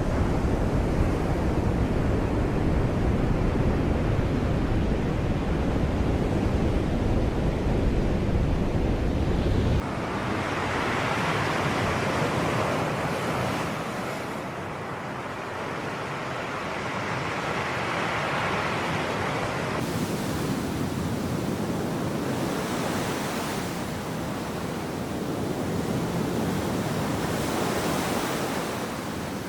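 Sea waves surging and washing on the shore. For the first ten seconds a heavy low rumble of wind on the microphone lies under it and then stops suddenly; after that, the surf swells up twice and fades.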